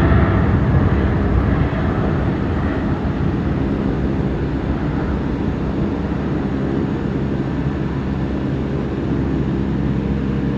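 Airliner jet engine noise from a passing aircraft, steady and slowly fading as the plane moves away.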